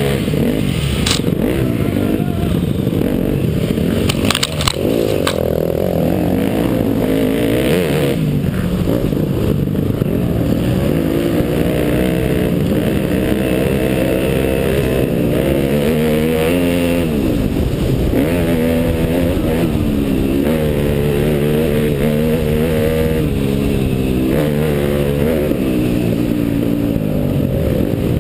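Off-road dirt bike engine ridden hard, its pitch repeatedly rising and falling as the rider revs, shifts and backs off through the trail. A few sharp knocks come around four to five seconds in.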